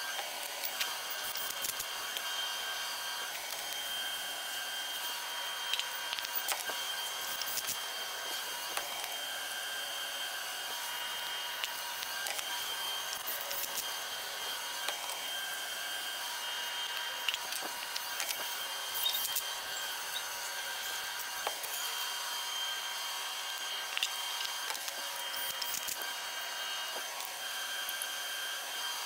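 A steady, high-pitched mechanical whine of shop machinery runs throughout, with scattered light clicks and knocks of hand tools working on a bare engine block.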